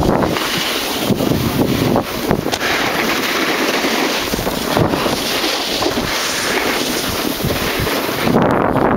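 Wind buffeting the microphone of a camera carried down a ski slope at speed, mixed with the steady hiss of edges sliding over packed snow.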